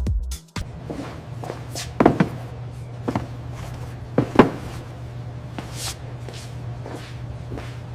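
Electronic dance music cuts off about half a second in. After it comes a steady low hum with scattered light knocks and footstep-like taps, and two sharper thuds about two and four and a half seconds in.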